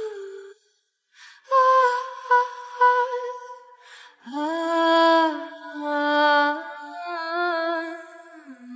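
Background music: a woman's voice hums long, wordless held notes with no instruments, stepping between pitches and dropping lower about halfway through, as the lead-in to a pop song.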